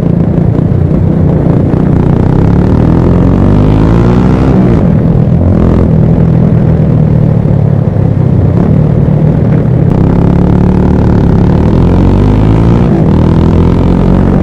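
Motorcycle engine running steadily at highway cruising speed, heard from the rider's seat over loud wind noise. Its pitch shifts up and down about four seconds in and again near the end.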